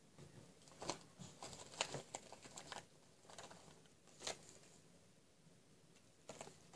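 Small plastic toy figures clicking and rustling as they are rummaged through by hand in search of one piece: a cluster of light clicks and rustles over the first few seconds, then one more click a little past four seconds in.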